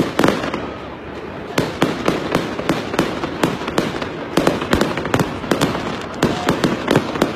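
Fireworks going off overhead: a dense, irregular run of sharp pops and crackles, several a second, without letup.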